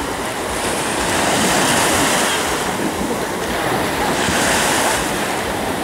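Ocean surf washing onto the beach: a steady rush of breaking water that swells twice, about two seconds in and again near five seconds.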